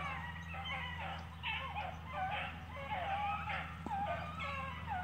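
A pack of beagles baying and yelping, many short overlapping calls, as the hounds run a rabbit's trail.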